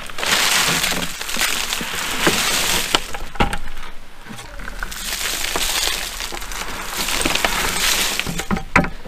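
Dry leaves and wood chips rustling and crackling as they are spread out by hand and rake, in several waves with sharp crunches and clicks.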